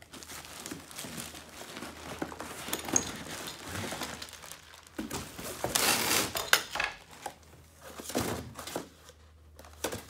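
Plastic wrapping crinkling and cardboard packing rustling as a bagged string-trimmer powerhead is pulled out of its shipping box; irregular crackling, loudest about six seconds in.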